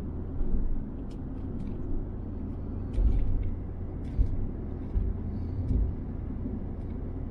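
Low, steady rumble of city road traffic, swelling louder a few times.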